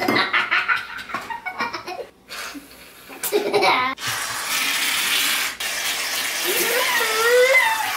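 Aerosol can of shaving cream hissing as foam is sprayed out, in two long spurts with a short break between them about five and a half seconds in. Children laugh and giggle at the start and again near the end.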